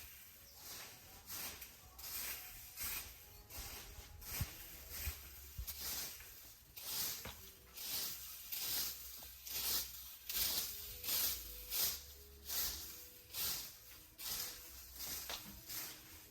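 Repeated rasping scrape strokes, roughly one or two a second, like a hand tool or brush being worked over a rough surface.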